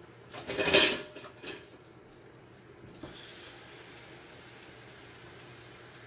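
Kitchen handling noise: a loud clattering bump about a second in, like cookware being moved, with a smaller knock just after. A faint steady hiss starts about three seconds in.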